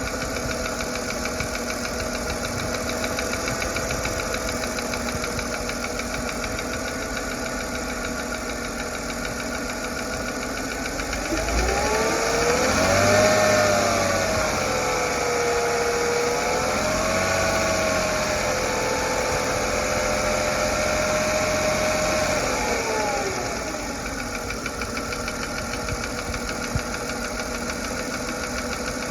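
Mercedes-Benz M112 V6 idling with a steady tick from the driver's side of the engine; about a third of the way in it is revved, held a little higher for about ten seconds, then drops back to idle. The tick remains after the driver's-side hydraulic lifters were replaced, and the owner wonders whether it is an injector or piston slap.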